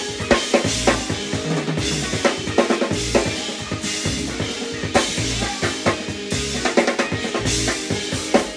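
Live jazz-fusion band playing, driven by a busy drum-kit groove of kick, snare and cymbals over sustained electric bass notes.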